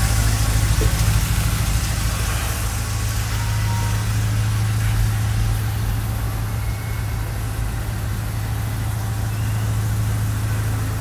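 Volkswagen Golf Mk3 (A3) engine idling steadily through a modified exhaust of 2.5-inch stainless piping, a Magnaflow muffler and dual stainless tips, with a steady low note.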